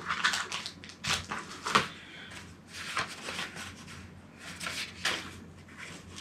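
Rustles and light taps of cardboard packaging being handled: a cardboard mailer picked up and its flap pulled open, in a string of short, separate handling noises.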